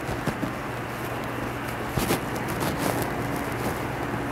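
A rag rubbing and dabbing grease off the gears of an industrial sewing machine, with scattered light clicks, the clearest about two seconds in, over a steady low hum.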